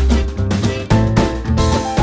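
Background music with a steady beat and a bass line.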